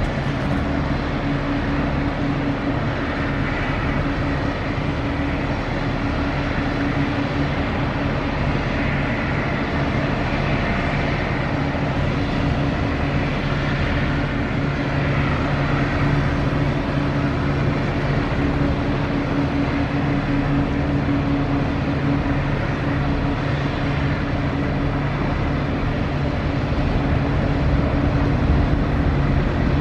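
Inland cargo barge's diesel engine running with a steady low hum as the vessel passes close by, a little louder near the end.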